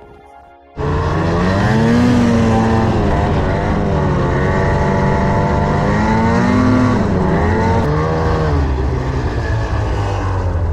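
Two-stroke mountain snowmobile engine revving under load in deep powder, its pitch rising and falling with the throttle. It cuts in abruptly about a second in.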